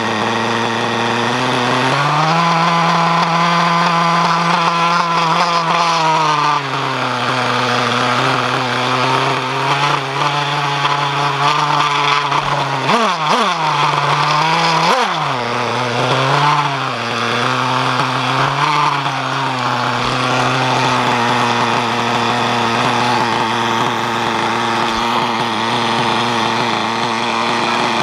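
Novarossi glow-fuel two-stroke engine of a Kyosho Inferno MP9 TKi3 1/8-scale buggy, heard close up from the car itself. The revs rise and hold for a few seconds, then drop, with two quick sharp dips and recoveries in pitch around the middle, and it then settles to a steady idle.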